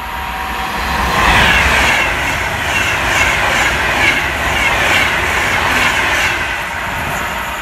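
Train passing close by, its wheels running over the rails with a rhythm that repeats about once a second. It builds up over the first second and stays loud.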